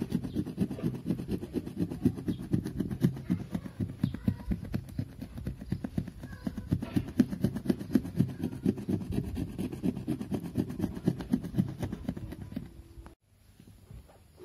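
Razor blade scraped rapidly back and forth over windshield glass, a dense run of short strokes that stops abruptly about 13 seconds in.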